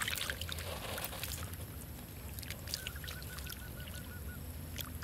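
Hands groping through shallow muddy pond water, with small sloshes and splashes. A little under three seconds in comes a quick run of about ten short, high, evenly spaced notes.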